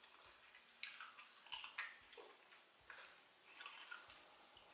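Quiet, wet eating sounds of a person chewing soft plantain pottage eaten by hand: a scatter of short smacks and clicks, about six in a few seconds.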